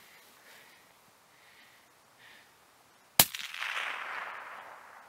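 A single bolt-action rifle shot about three seconds in: a sharp crack followed by an echo rolling away across the terrain, fading over about a second and a half.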